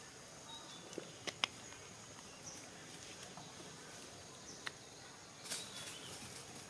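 Faint outdoor ambience with a few sharp crackles and a short rustle of dry bamboo leaves and twigs as a baby monkey clambers over them, over a faint steady high hiss.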